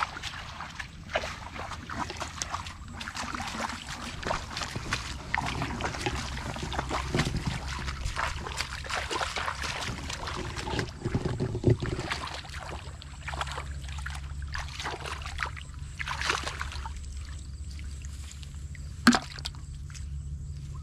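Irregular rustling and sloshing of feet and hands moving through wet grass and shallow muddy water, with a steady low hum underneath and one sharp click near the end.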